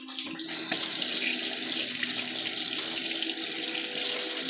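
Kitchen faucet turned on about half a second in and running steadily into the sink as oily hands are rinsed under it.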